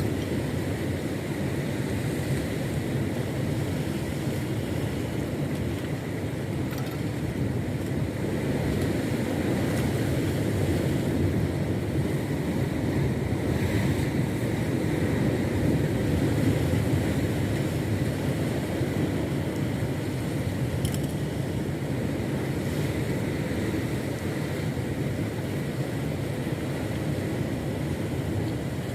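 A small fishing boat under way: its motor running steadily, mixed with wind and water noise.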